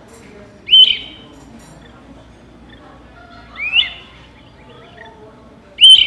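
Recorded great crested flycatcher calls: three sharp, rising whistled calls about three seconds apart, played from a small handheld speaker held up to a microphone.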